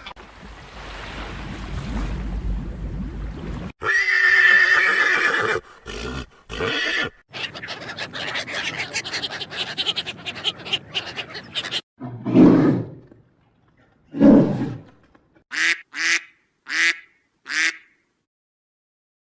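A string of separate animal calls cut one after another: a noisy stretch, a pitched call about four seconds in, a long rough stretch, two low calls, then four short calls in quick succession near the end.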